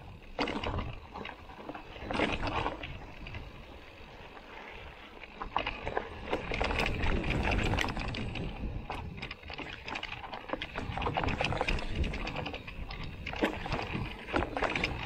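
Canyon Neuron:ON e-mountain bike rolling fast down a rough dirt and gravel trail: tyres crunching over stones, with a constant clatter of knocks and rattles from the bike over bumps. It eases off for a moment about three seconds in and is busiest around the middle.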